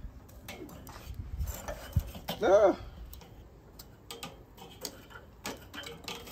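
Metal tongs clicking and tapping against the steel cooking grate of a Weber charcoal kettle while poking at the burning charcoal below, to check the fire is still going. A brief wavering squeal about two and a half seconds in is the loudest sound.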